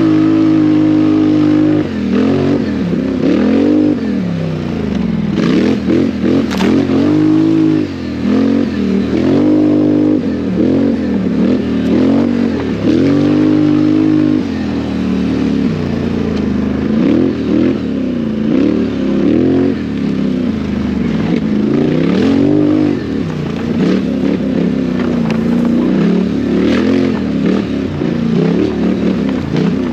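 Racing quad's engine revving up and down over and over as the throttle is opened and closed on an off-road course, with a few short knocks and clatters.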